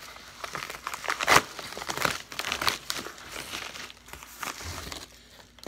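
Padded paper mailer crinkling and rustling as it is pulled and worked open by hand, with one sharp, louder crackle about a second and a half in.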